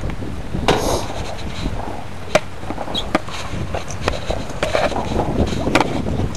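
Several sharp knocks and clicks around a landed sturgeon being handled on a fibreglass boat deck, over a steady low wind rumble on the microphone.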